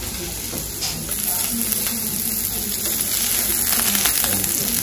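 Vegetables sizzling on a hot cast-iron griddle over a portable gas burner. The sizzle grows louder about a second in, with crackling near the end as a pat of butter goes onto the hot plate.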